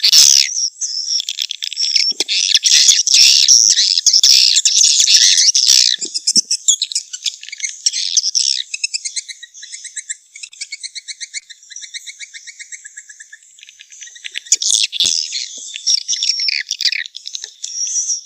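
Swiftlet calls, of the kind played to draw swiftlets into a nesting house: dense high twittering chirps, then from about six seconds in a long run of fast rattling pulses, and twittering again near the end.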